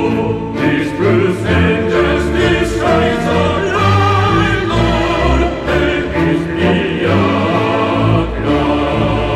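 Background music: a choral piece with voices singing sustained chords over instruments and a deep bass line.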